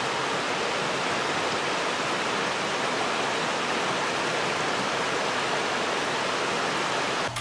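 Steady rush of a fast-flowing creek over rocks, cutting off abruptly near the end.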